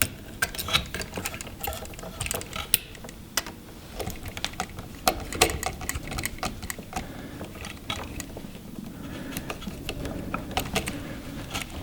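Irregular small clicks and taps of a screwdriver turning a terminal screw on a light switch, with the switch and wire being handled as the wire is fitted.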